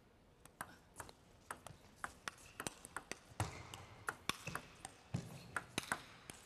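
A table tennis ball being struck back and forth in a rally, a sharp click of ball on bat or table about three to four times a second, starting about half a second in. A few duller thuds sit among the clicks.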